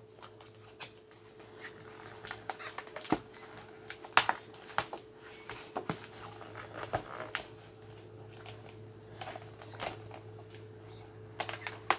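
Scattered light clicks, taps and rustles of a thin magnetic mat and its packaging being handled, over a faint steady hum.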